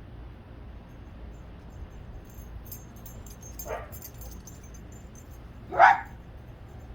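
A dog barking twice, short single barks, the second near the end louder and rising in pitch.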